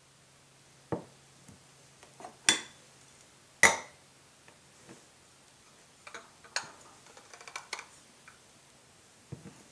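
A drinking glass and a ceramic saucer knocking and clinking on a countertop as the saucer is laid over the glass and the two are flipped over. Three sharp knocks in the first four seconds, the third the loudest, then a quick run of lighter taps and clinks about six to eight seconds in, and one more knock near the end.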